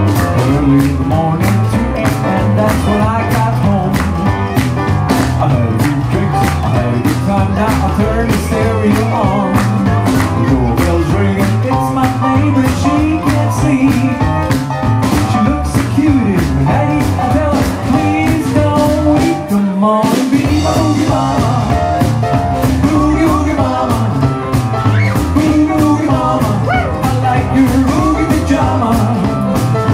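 A live rock and roll band playing an up-tempo boogie-woogie number: slapped upright bass, drums keeping a steady beat, electric guitar and piano, with a male lead vocal in the latter part. There is a brief break in the bass and drums about two-thirds of the way through.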